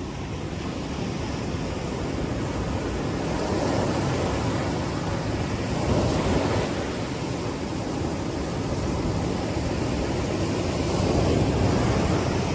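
Ocean surf breaking and washing up onto a sandy beach: a steady rushing that swells and eases, rising twice in strength.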